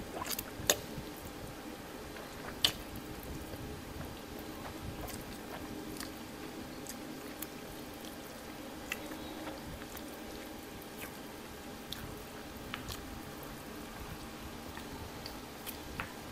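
Close-up eating sounds: instant noodles being slurped and chewed, with scattered short clicks and smacks, the two sharpest in the first three seconds. A steady electric-fan hum runs underneath.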